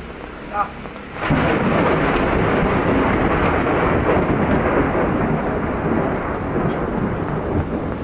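A thunderclap about a second in, its rumble going on loud for several seconds and slowly fading, over steady rain.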